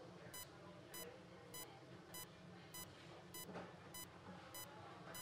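Faint, evenly spaced short beeps from an ICU bedside patient monitor, a little under two a second: the pulse tone that sounds with each heartbeat, here near 100 a minute.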